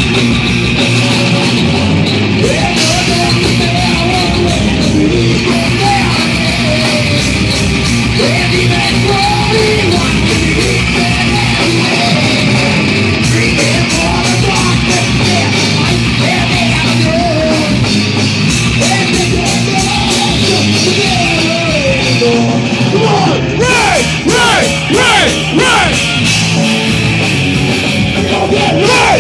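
A metal band playing live and loud: distorted electric guitar, bass guitar and drums, with shouted vocals over them.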